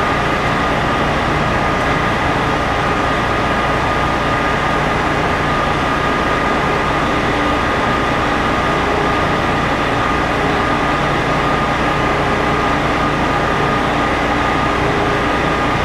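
Lugger truck's diesel engine running steadily, with a constant high whine on top of its low rumble.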